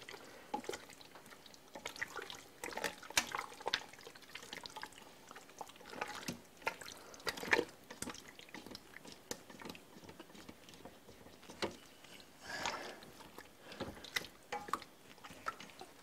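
A spoon stirring chicken and barbecue sauce in the stainless steel inner pot of an Instant Pot: faint, irregular clinks and scrapes of the spoon against the metal, with wet stirring sounds.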